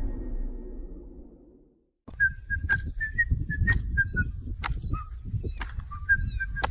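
An animal giving rapid runs of short, high whistling chirps, about four or five a second, with a pause in the middle. Sharp clicks and low rumbling handling noise sound underneath. The chirps start about two seconds in, after a fading rumble cuts off to a moment of silence.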